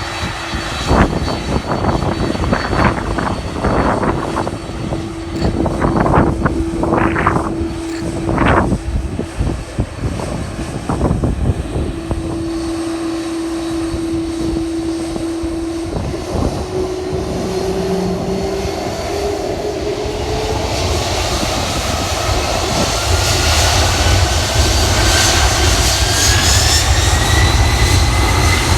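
Boeing 767-300ER's GE CF6 turbofan engines spooling up. Their whine rises steadily in pitch through the second half and a deep rumble builds near the end, as at the start of a takeoff roll. Irregular gusts of noise come over the first ten seconds or so.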